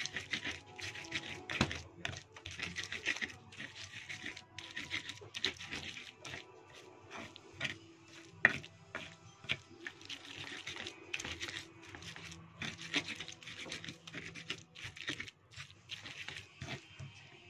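Stone pestle grinding and scraping wet spice paste against a stone mortar (cobek and ulekan), in irregular rubbing strokes with small knocks. One sharp knock of stone on stone stands out about eight and a half seconds in.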